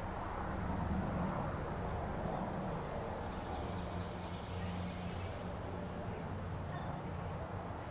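Steady low background hum with a few faint, brief high chirps.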